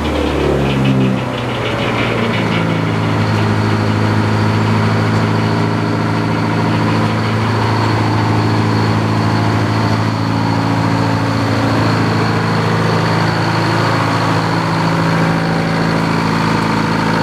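Engine idling steadily, its pitch dropping and settling about a second in, with a faint high whine running alongside.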